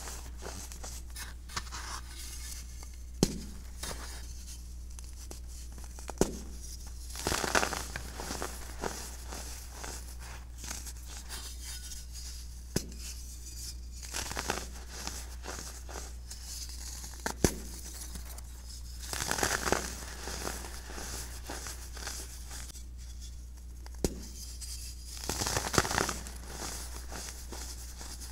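Hands crushing and crumbling lumps of compressed baking soda into powder: bursts of crunching every few seconds, with single sharp snaps as pieces break apart.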